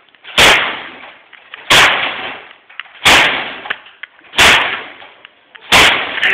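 Five loud blows striking a microwave oven, evenly spaced about every second and a third, each a sharp bang that fades out.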